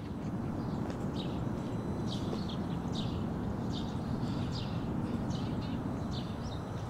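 Small birds chirping: short, quick downward-sweeping calls repeated about twice a second over a steady low outdoor background noise.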